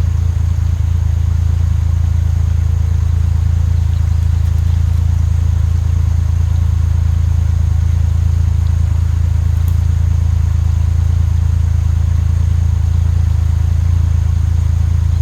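Swollen creek water rushing over rocks, a steady low roar.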